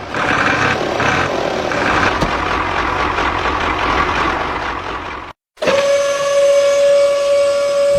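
A small motor runs with a rough, noisy sound. After a short break about five seconds in, it gives way to a steady high whine.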